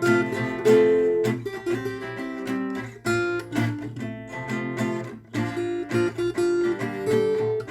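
Acoustic guitar strummed in steady chords as worship-song practice, the chord changing about three seconds in and again about five seconds in.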